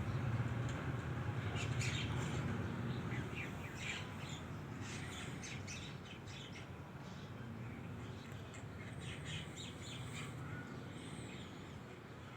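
Several birds chirping and calling in quick short notes, over a low rumble that fades after the first few seconds.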